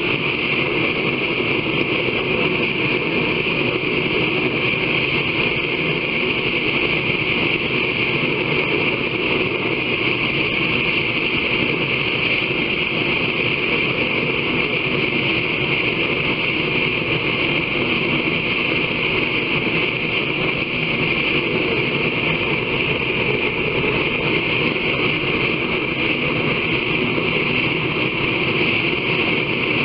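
Forge running: a loud, unbroken roar with a bright hiss on top and no strikes or pauses.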